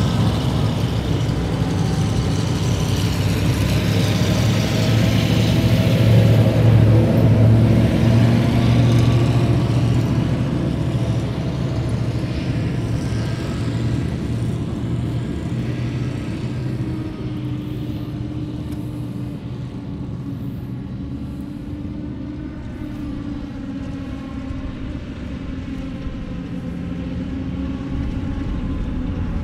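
BM-27 Uragan rocket launcher trucks on the eight-wheeled ZIL-135 chassis, each with twin petrol V8 engines, driving past with their engines running. The engine sound swells to its loudest about six to eight seconds in, fades through the middle and rises again near the end.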